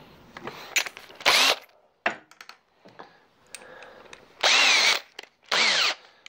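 Cordless drill-driver driving 16 mm screws in three short bursts, its motor pitch rising and then falling in each, with small clicks between.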